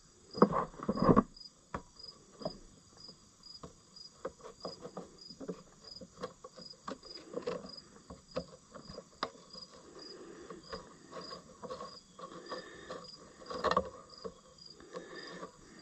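A cricket chirping steadily, a high chirp about twice a second, under scattered clicks and knocks of tools and parts being handled. The loudest knocks come in the first second and a half and again near the end.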